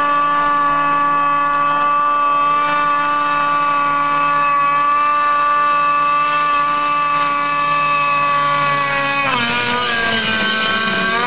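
Arctic Cat M7 snowmobile's two-stroke engine held at high, steady revs while it hydroplanes across open water. About nine seconds in the revs drop sharply, then dip and climb again near the end.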